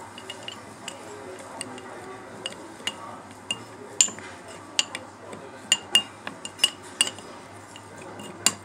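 Metal spoon stirring an oily garlic and herb mixture in a small ceramic bowl, clinking against the bowl's side at irregular intervals, the clinks sharper and more frequent from about four seconds in.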